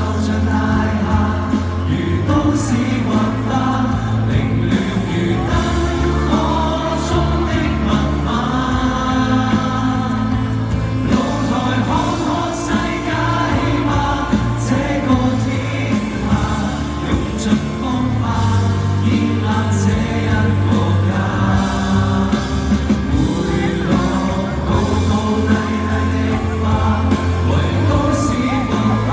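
Live Cantopop band music with sung vocals and layered, choir-like voices over a steady bass line.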